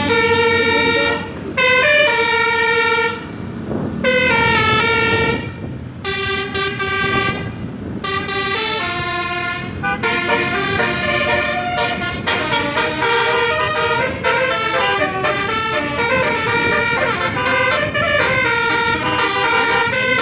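An Indonesian bus's 'telolet basuri' musical air horn playing a melody of held notes that step from pitch to pitch, with short breaks between phrases at first and quicker, busier note changes in the second half.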